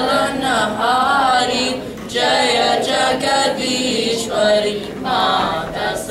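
A group of children chanting a prayer together in unison, sung in long phrases with short pauses between them.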